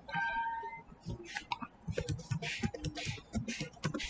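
Typing on a computer keyboard: a run of irregular key clicks. A brief tonal sound comes at the very start.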